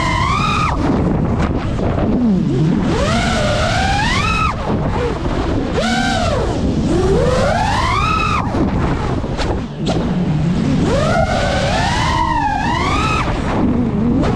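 GEPRC Mark5 FPV quadcopter's motors and propellers whining, the pitch sweeping up and falling away again several times as the throttle is punched and eased, over a steady rush of wind on the microphone.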